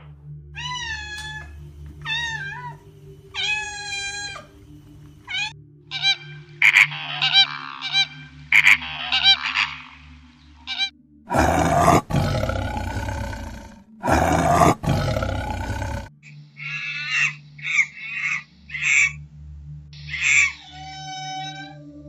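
Tiger roaring: two long, loud roars back to back about halfway through. Before and after them come runs of short, high calls that bend in pitch, over a low steady hum.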